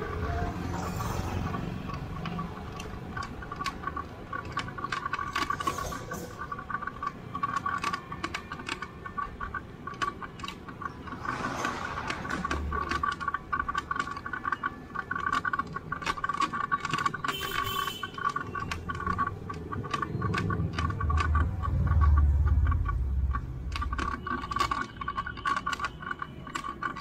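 Bicycle ticking and rattling as it rolls along: a dense, fast clicking that drops out now and then. A louder low rumble comes in for a few seconds about three quarters of the way through.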